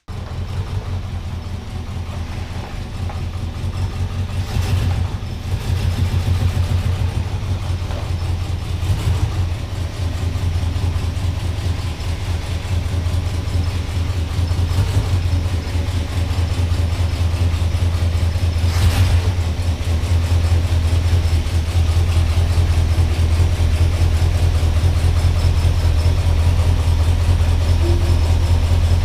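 A 1978 Ford F-150's 460 big-block V8 running with a steady low drone, a few brief knocks through it; the engine has a bad misfire.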